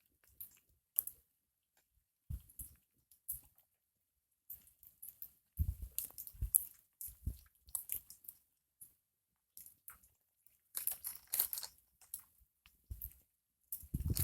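Campfire of apple-wood remains crackling and popping in irregular snaps, with two busier runs of crackles, one about halfway and one near the end.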